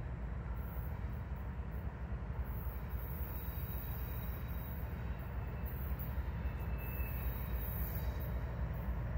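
Norfolk Southern diesel locomotives approaching at low speed, a steady low engine rumble that grows slightly louder as they near.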